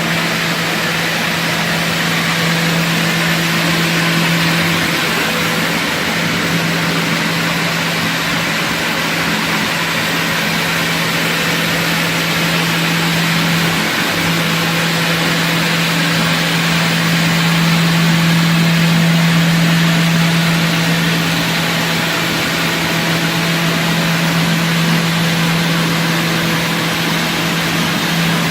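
HOMAG BOF 41/K CNC machining centre running: a steady mechanical hum with a constant low tone and an even hiss, unchanging throughout.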